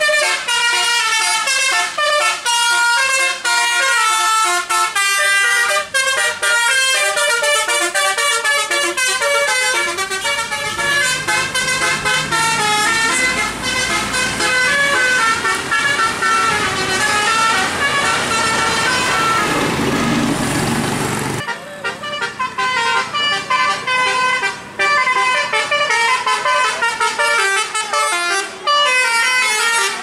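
Tour buses' Basuri telolet horns, roof-mounted multi-trumpet air horns, playing quick melodic tunes of short stepped notes one after another. From about ten seconds in, a bus engine's rumble rises under the horn tunes and cuts off abruptly a little after twenty seconds, while the horn tunes carry on.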